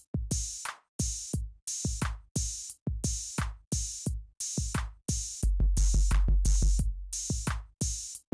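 Background electronic music: a drum-machine beat of about two hits a second, with a long deep bass note under a quick run of hits about five and a half seconds in.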